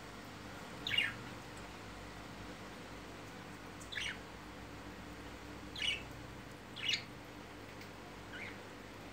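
Budgerigars in a cage giving short, sharp chirps, five in all, spaced one to three seconds apart.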